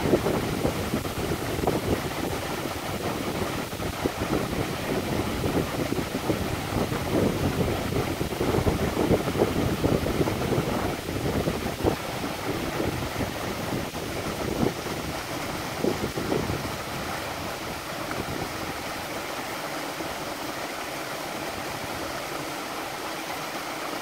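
Small waterfall spilling between boulders into a rocky pool: a steady rush and splash of water. An uneven low rumble runs under it for the first two-thirds, then fades away.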